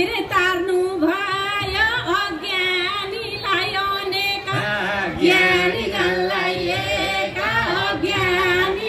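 A woman singing a Nepali chudka bhajan, a devotional folk song, amplified through a PA loudspeaker: one high voice in continuous phrases with a wavering pitch.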